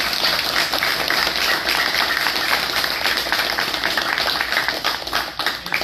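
A group of about a dozen people clapping their hands in applause: a dense, steady patter of claps.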